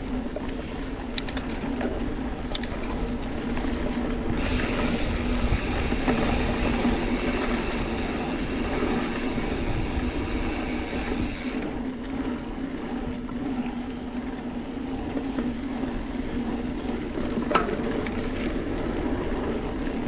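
Mountain bike being ridden along a dirt trail: a steady rolling hum and rattle from the tires and bike. A rush of wind noise comes in about four seconds in and drops away about twelve seconds in, and there is a single sharp click near the end.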